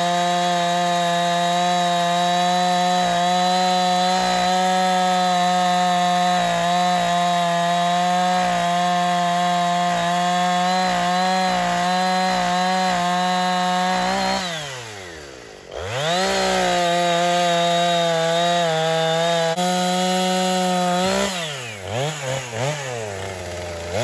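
Husqvarna 460 Rancher two-stroke chainsaw held at full throttle at a steady pitch, cutting through a felled log. About two-thirds of the way through, the throttle is let off and the engine drops almost to idle, then revs straight back up and keeps cutting. Near the end it is revved and released a few times in quick succession.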